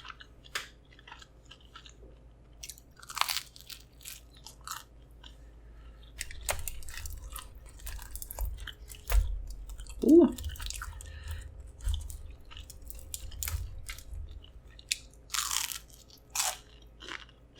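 Close-miked biting and chewing of pan-crust pizza: irregular crisp crunches and mouth clicks, with heavier chewing from about halfway through.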